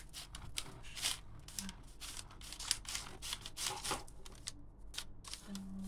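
Serrated knife sawing through a flaky, sugar-dusted almond twist pastry on a paper bag: a quick run of short, crisp rasping strokes as the layered crust crunches.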